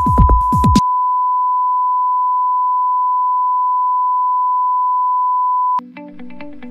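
Television colour-bar test tone: one unbroken high beep at a constant pitch, lasting nearly six seconds and cutting off suddenly. Electronic music ends under it within the first second, and plucked guitar music starts just as it stops.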